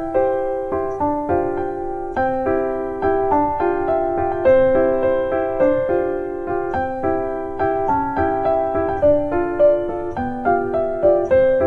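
Background music: gentle piano playing a steady flowing melody with chords.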